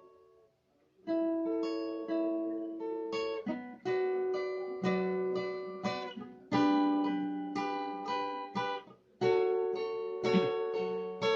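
Acoustic guitar playing strummed chords that ring out and change every second or two. It starts about a second in, after a brief near-silent pause.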